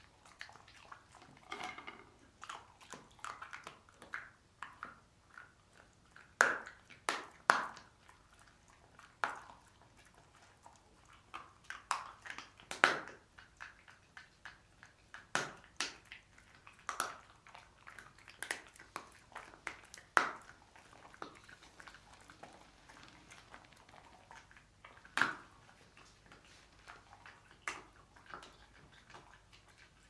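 A dog crunching and chewing a green dental chew stick: sharp, irregular crunches with short quiet gaps, a few much louder bites among softer ones.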